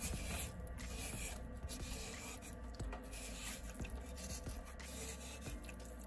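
Scrubber rubbing back and forth on the porcelain floor of a toilet tank, cleaning grime off the fill valve's seating surface, in repeated scratchy strokes.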